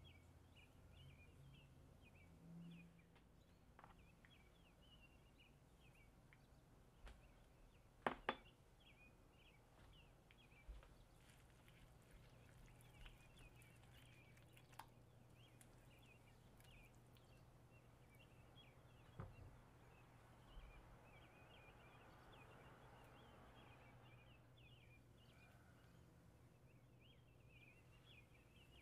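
Very faint bird chirping, short irregular chirps all through, over a low hum, with a few light clicks or taps; the loudest, a quick pair, comes about eight seconds in, and another about nineteen seconds in.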